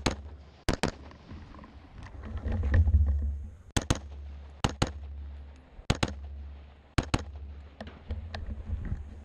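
AR-15 rifle firing, mostly as quick pairs of shots (double taps) about a second apart, engaging targets two rounds apiece in a timed match stage.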